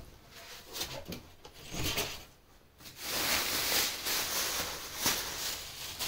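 Cardboard carton scraping and knocking as it is slid up off a mini fridge, then a louder stretch of plastic bag rustling and crinkling, about three seconds in, as the wrap is pulled off the fridge.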